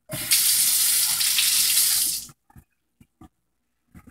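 Kitchen tap running for about two seconds, then shut off, followed by a few light clicks and knocks.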